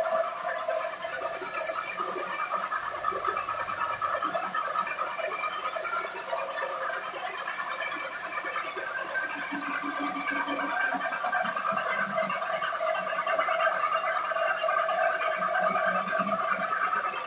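Electric belt sanding machine running steadily while the edge of a glass sheet is held against its sandpaper belt, giving a continuous grinding whir that grows somewhat louder in the second half.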